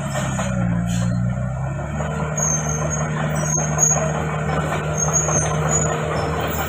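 Komatsu D31PX crawler bulldozer running, its diesel engine giving a steady low drone, with short high-pitched squeals from the steel tracks several times.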